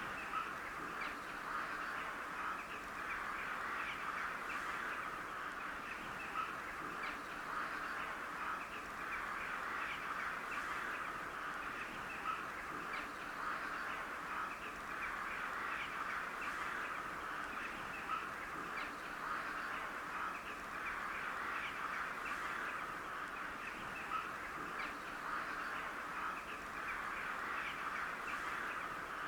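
A flock of crows calling, many short caws overlapping in a dense, continuous chatter.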